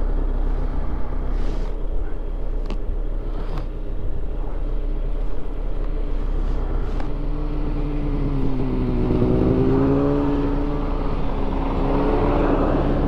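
Polaris snowmobile engine idling steadily. From about seven seconds in, a line of snowmobiles comes up and passes close by, their engine notes dipping and rising in pitch and growing louder toward the end.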